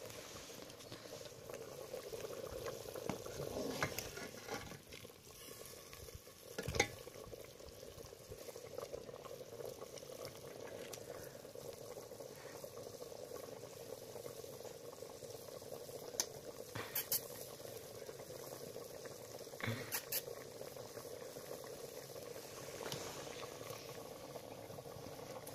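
A metal cooking pot bubbling steadily over an open wood fire, with a few sharp clicks scattered through, the loudest about seven seconds in.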